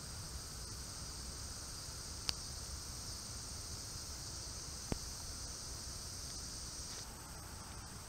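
Steady, high-pitched insect buzzing that cuts off abruptly about seven seconds in, while a thinner, higher insect tone keeps going. Two faint clicks come a couple of seconds apart over a low background rumble.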